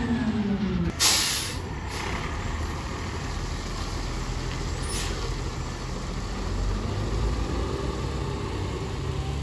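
Garbage truck's air brakes releasing with a loud hiss about a second in and a short one later, over the steady low rumble of its diesel engine as it pulls away. A falling whine fades out just before the first hiss.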